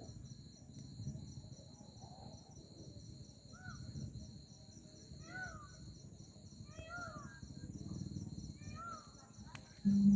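Crickets or other insects chirping in a steady pulsing chorus over a low rumbling outdoor background. A few short rising-and-falling calls come from an animal, most likely a bird. Near the end a loud steady low hum begins.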